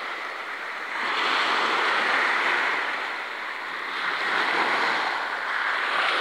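Small waves breaking and washing up a pebble beach. The surf swells and eases in two surges.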